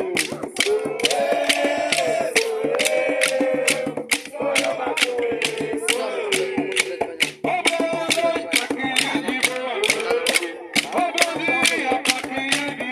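Capoeira roda music: a group singing a melodic chant over steady percussion, with sharp strikes about three a second.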